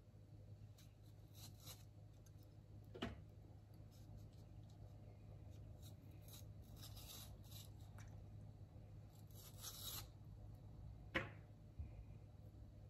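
Faint, scattered scraping strokes of a peeler blade pulling the skin off an aloe vera leaf, each pull a short hiss. Two sharp knocks cut in, one about three seconds in and a louder one near the end.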